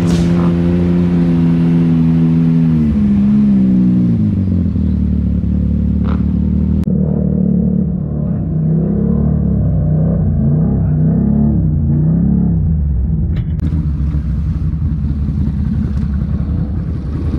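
Off-road vehicle engines running and revving: the engine pitch drops a few seconds in, then rises and falls repeatedly as the throttle is worked.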